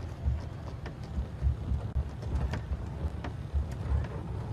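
Open game-drive vehicle moving over rough bush track, a lumpy low rumble with wind buffeting the microphone and a few short knocks from bumps.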